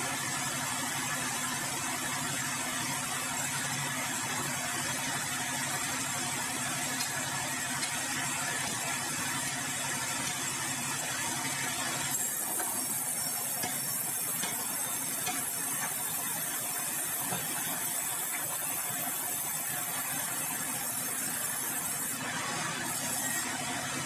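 Sawmill machinery running steadily: a constant engine-like drone with a hiss on top, the high part of the hiss changing about halfway through.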